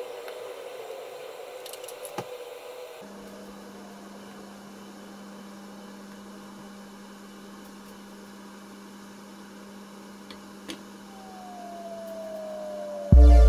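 Saucepan of water boiling on an electric hob: a faint, even bubbling hiss over a steady low hum, with a couple of light clicks near the end as metal tongs touch the pan. Loud background music cuts in at the very end.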